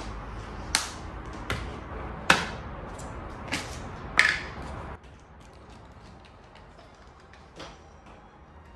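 Kitchen utensils knocking and clinking against cookware: five sharp knocks with a short ring over about three and a half seconds, over a steady hiss that cuts off suddenly about five seconds in, then one fainter knock near the end.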